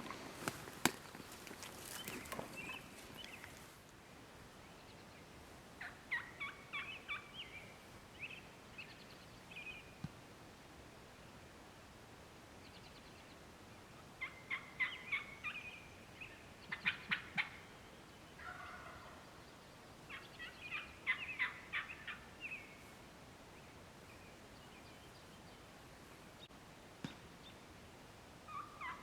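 Wild turkey gobbler gobbling faintly, several rattling gobbles a few seconds apart. A few sharp clicks and rustles come in the first seconds.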